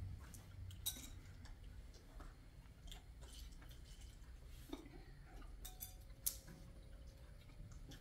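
A few faint, scattered clicks and light knocks, as of small objects being handled, over a low steady rumble.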